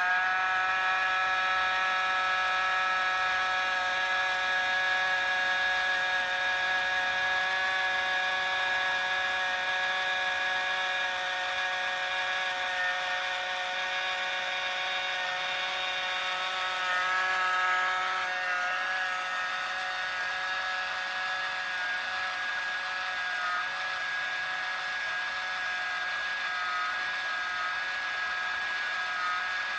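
Small battery-powered motor and fan of a toy bubble truck whirring steadily with a high whine while it blows bubbles. About seventeen seconds in the pitch shifts slightly and the whine becomes less even.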